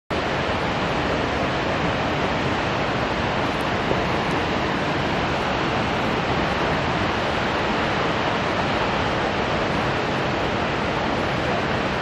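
Shōmyō Falls, a tall waterfall plunging down a rock gorge, its falling water making a steady rushing noise.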